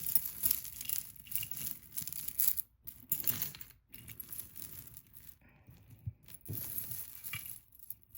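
Metal costume jewelry jingling and clinking as a tangled pile of chains and pieces is handled, in many short irregular clinks with brief pauses.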